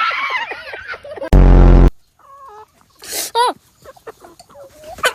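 Chickens squawking and clucking in short pitched calls, with a person's shout at the start and a very loud, brief flat buzzing tone about a second and a half in.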